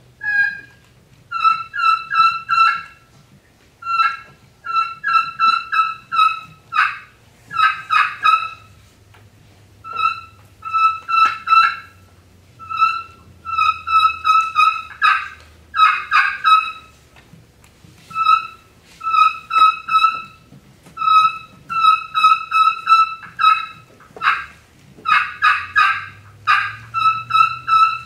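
Friction turkey call played as a kee-kee run, imitating the lost whistle of a young turkey. It gives thin, high whistled notes and strings of yelps in short runs, separated by brief pauses, with a few raspier, louder bursts of notes.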